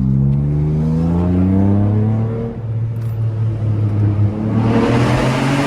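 Car engine accelerating under load. Its pitch climbs for about two and a half seconds and holds steady, then climbs again as a loud rush of exhaust noise builds near the end.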